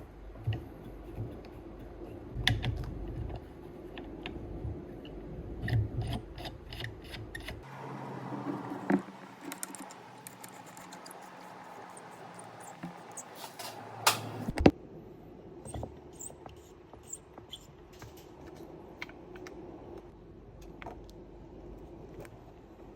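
Small metal tools and phone parts clicking and tapping during an iPhone disassembly, in scattered irregular clicks with two sharper knocks a little past halfway, over a faint steady hum.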